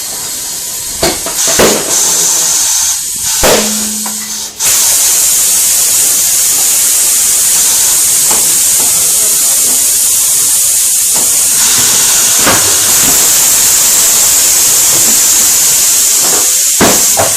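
Compressed air hissing loudly and steadily in a tire shop, a few sharp clanks of tools or wheel parts scattered through it.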